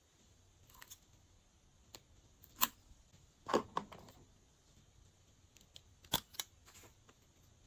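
Scissors snipping the tips off two lipsticks: a few short sharp snips and clicks, the loudest in a cluster about two and a half to four seconds in. Two more sharp clicks follow later.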